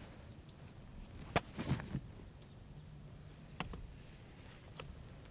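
Something moving through dry leaves and brush: a few sharp crunches and twig snaps, loudest in a quick cluster about a second and a half in, with short high chirps scattered through.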